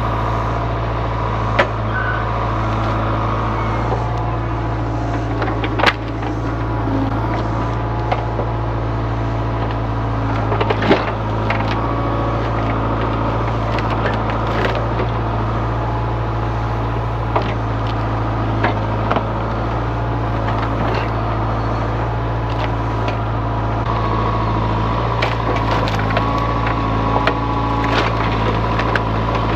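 Diesel engine of heavy earthmoving equipment running steadily, with scattered sharp knocks and clanks over it.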